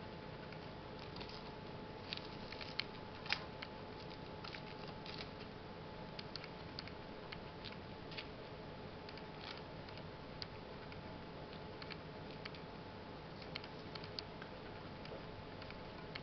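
Faint, scattered small clicks and light scraping as a thin wooden stick and fingers work in potting soil and perlite in a plastic seedling tray, over a steady faint hum.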